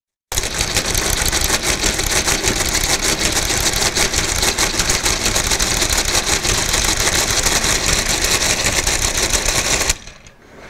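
Friden SRQ square-root calculator running through an automatic square-root calculation: its electric motor and geared mechanism make a fast, steady clatter. The clatter cuts off about ten seconds in, when the machine has finished and the result stands in the dials.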